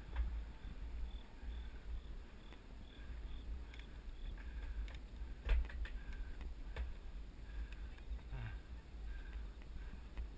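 A mountain bike rolling down a dirt and gravel road: low rumble of wind and tyres on the action camera's microphone, with scattered clicks and rattles, the sharpest a little past halfway. Faint, evenly repeated high chirps run underneath.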